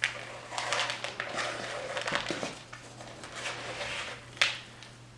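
Wooden spatula folding chocolate chips into thick cookie dough in a bowl: repeated scraping strokes, with a sharp knock about four seconds in.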